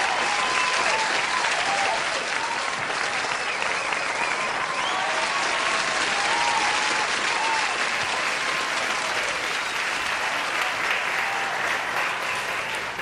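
Audience applauding steadily, with voices calling out over the clapping, dying down near the end.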